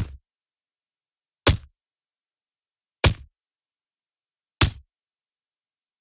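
A club-hit sound effect: a sharp whack with a short, dull tail, repeated four times about one and a half seconds apart.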